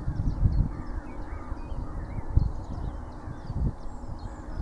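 Wind buffeting the microphone in uneven gusts, with birds chirping and calling in the background.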